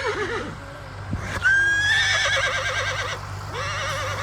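Horse whinnying: a long neigh about a second and a half in that starts high and steady, then quavers rapidly for over a second, followed near the end by a shorter, lower whinny.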